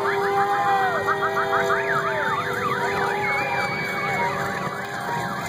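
Several sirens going at once, their pitches sweeping up and down over each other, some in fast yelps and some in slower wails, with a steady held horn under them that stops a little past the middle.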